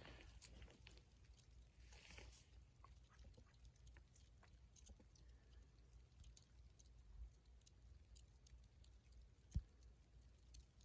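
Faint, sparse crackling of a small wood fire, with one low thump about nine and a half seconds in.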